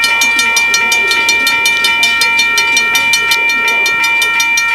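Level-crossing warning bell ringing fast and evenly, about seven strokes a second, over a steady ringing tone.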